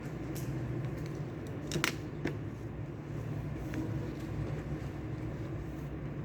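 Steady low hum of indoor room ambience, with a handful of light clicks and taps from desk work. The clearest taps come as a short cluster about two seconds in.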